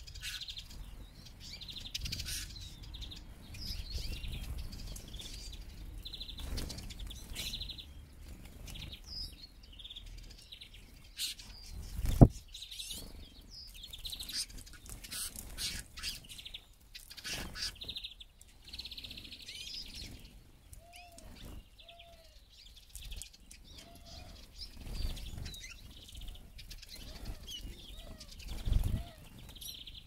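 A flock of Eurasian siskins at seed pots: wings flapping as birds fly in and out, with short high chirping calls. A sharp knock about twelve seconds in is the loudest sound, and a few lower curved notes come in the second half.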